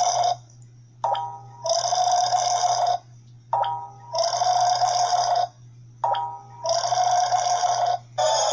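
The same burp repeats at even intervals: three burps about a second long, each preceded by a short click, with a fourth starting near the end. The repeats are identical, as from a looped sound.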